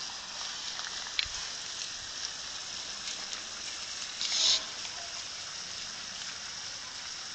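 A horse being washed by hand: a steady watery hiss, with one short, louder hiss about four seconds in as liquid is sprayed or squeezed onto its coat.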